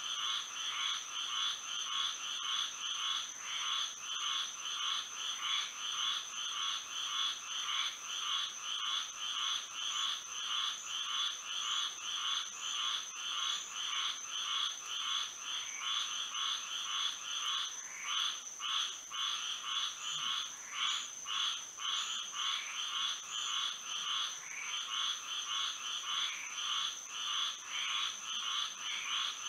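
A chorus of many frogs calling at once at night, a dense, unbroken run of rapid repeated calls, with a steady high-pitched tone above it.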